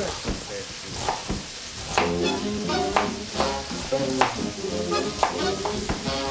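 Chicken pieces sizzling as they fry skin-side in a pan, their fat rendering out, under background music.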